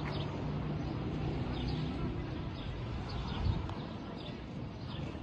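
Small birds chirping again and again in short falling chirps, over a low rumble. A brief thump comes about three and a half seconds in.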